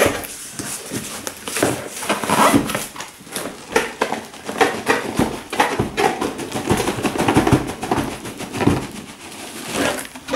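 Cardboard shipping box being opened by hand: flaps rustling and scraping as they are folded back, the box knocking and shifting on a wooden floor, and a shrink-wrapped inner box sliding out.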